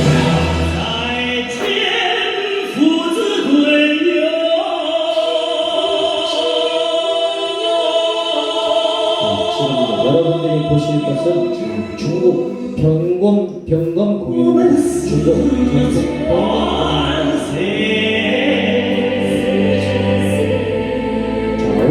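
Music with a singing voice, in an operatic style, and occasional sharp percussive strikes.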